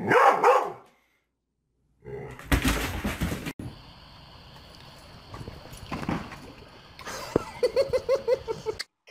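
Dog barking in short, separately cut clips: a loud burst at the start, a louder noisy stretch that cuts off suddenly a few seconds in, and a quick run of about six short pitched calls near the end.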